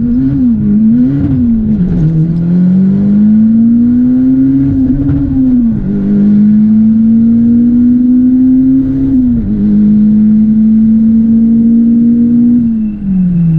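Turbocharged Acura RSX four-cylinder engine on a full-throttle quarter-mile drag run. Revs are blipped up and down at the line, then rise through the gears, with two shifts where the pitch drops sharply. The pitch holds near the top of the run, then falls away as the throttle lifts near the end.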